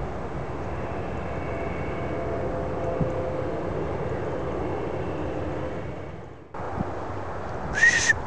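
Steady outdoor rumble with a faint engine-like drone. It drops away suddenly about six and a half seconds in and comes back, then a short, sharp high-pitched call sounds near the end.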